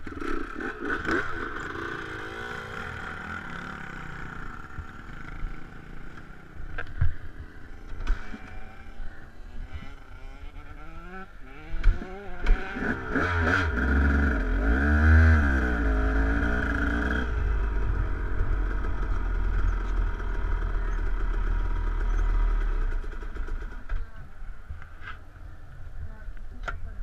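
Dirt bike engine running as the bike is ridden slowly over a bumpy trail, revving up and down about halfway through, with a few knocks and rattles. The engine settles to a quieter run near the end.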